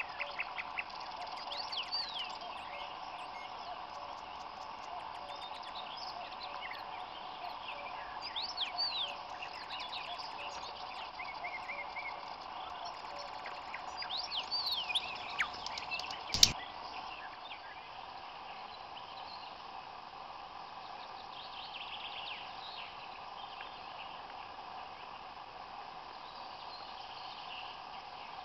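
A chorus of frogs calling steadily, with birds singing over it through the first half, and one sharp click about sixteen seconds in.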